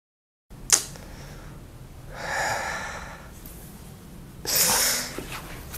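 A man letting out two heavy sighs: a long breath out about two seconds in, and a louder, shorter one near the end. A sharp click comes just under a second in, over a low steady hum.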